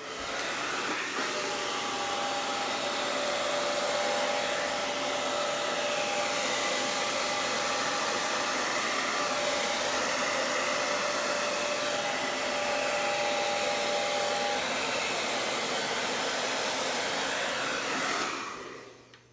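Hair dryer running steadily with a rushing whir and a faint motor whine, then switched off near the end.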